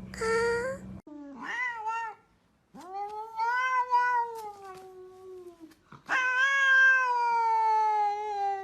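A pet animal wailing in long, drawn-out calls: a short call, a few quick wavering ones, then two long calls of about three seconds each, the second slowly sinking in pitch.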